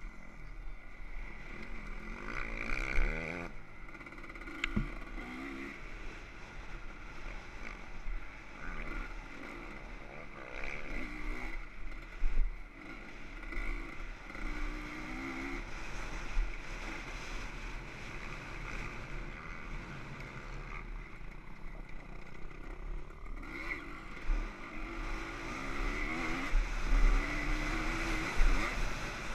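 Dirt bike engine heard from on board, repeatedly revving up and dropping back as the rider works the throttle and gears over the track, with wind buffeting the microphone.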